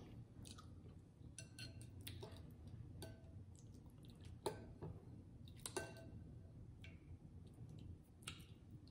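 Faint scattered clicks and soft wet sounds of a metal spoon scooping sauce from a glass bowl, over a low hum.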